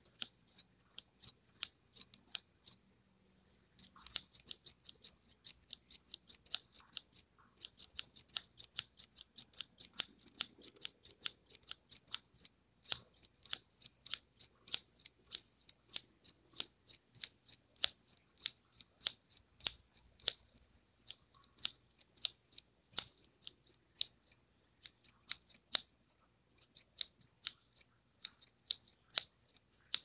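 Scissors snipping over and over: a quick run of sharp, crisp snips, several a second, with a short pause about three seconds in.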